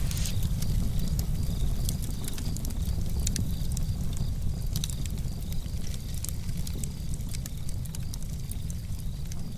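Wood fire crackling, with scattered sharp pops over a steady low rumble.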